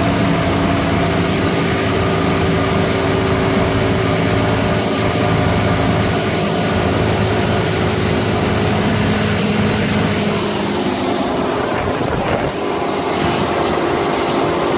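Yamaha 150 hp OX66 V6 two-stroke outboard running steadily at cruising speed under load, with a constant rush of wind and water.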